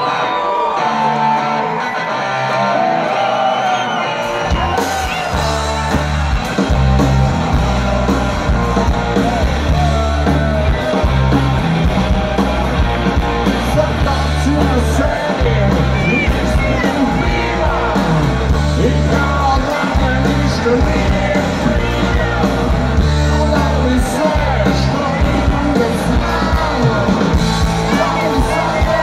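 Live rock band playing loud through a festival PA, heard from the audience: electric guitar and vocals over a quieter opening, then bass and drums crash in about four seconds in and the full band drives on.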